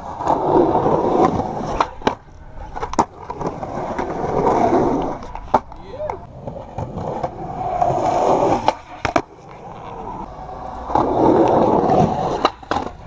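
Skateboard wheels rolling on rough concrete in several runs, with a few sharp clacks of the board striking the ground between them.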